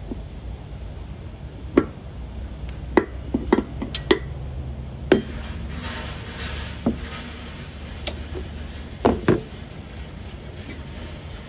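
Steel spanners clinking and knocking against hydraulic hose fittings as a cap is tightened onto a cut hose to deadhead the pump line for a pressure test. There are about ten sharp, irregular clinks over a steady low rumble.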